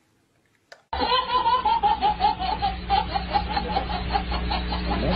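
A baby laughing in a rapid run of short, repeated laughs that starts suddenly about a second in, over a steady low hum.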